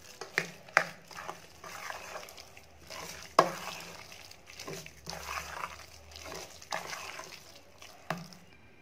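A steel spoon stirring thick curd rice in a stainless steel pot, in irregular strokes, with scrapes and knocks against the pot's side; the sharpest knock comes about three and a half seconds in.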